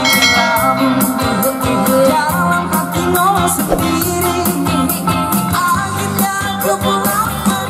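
Live band performing a song: a singer's voice over electric bass, electric guitar and keyboard, with a regular beat.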